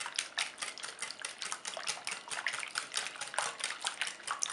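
Eggs, oil, sugar and milk being beaten by hand in a bowl for cake batter: a fast, steady clatter of strokes against the bowl, several a second, with a wet, liquid sound.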